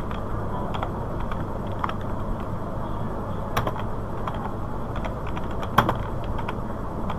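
Scattered computer keyboard keystrokes, a handful of isolated clicks with the sharpest just under six seconds in, over a steady low background hum.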